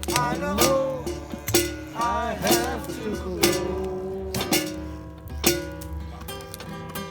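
Strummed acoustic string instrument playing, with a voice singing notes that slide up and down.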